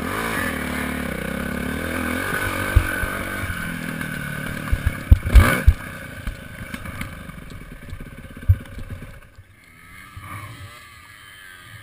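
Motocross dirt bike engine running hard on a sandy track, its pitch rising and falling as the throttle is worked, with several loud knocks about five seconds in and another near eight seconds. After about nine seconds the engine drops away to a much quieter running as the bike slows.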